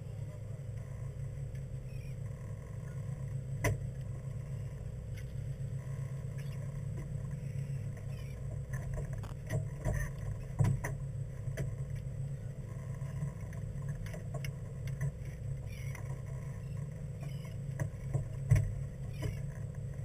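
A fishing boat's engine running steadily with a low hum, with a few scattered knocks on the deck or gear, the loudest near the end.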